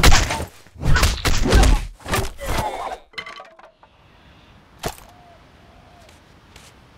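Cartoon fight sound effects: a quick run of heavy punches and thuds, with crashing and breaking, through the first three seconds. Then a few light knocks and one sharp click about five seconds in.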